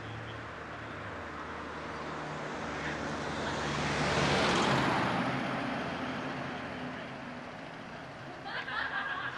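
A car driving past on the street, with tyre and engine noise growing louder to a peak about halfway through, then fading away.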